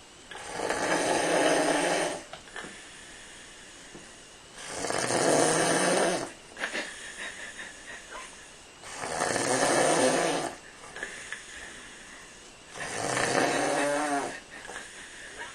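A man snoring in a steady rhythm: four long snores about four seconds apart, each lasting a second and a half to two seconds, with much softer sound between them.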